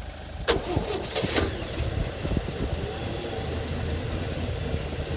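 1974 International Harvester pickup's engine cranked and catching on the first try, then running steadily. Two sharp clicks come about half a second and a second and a half in.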